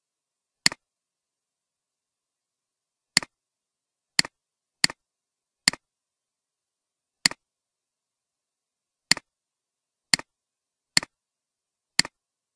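Computer mouse clicking about ten times at uneven intervals, each click a sharp press followed closely by a softer release.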